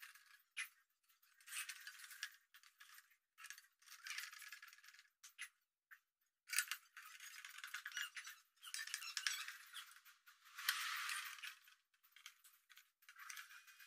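Metal front frame of an LED floodlight being fitted and screwed back onto its housing: irregular clicks, scrapes and short rattling bursts of small metal parts and a screwdriver, fairly faint and thin.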